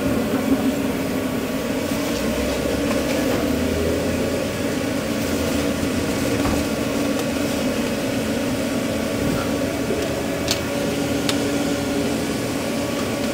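Steady mechanical drone of a food truck's kitchen machinery running, with two faint clicks near the end.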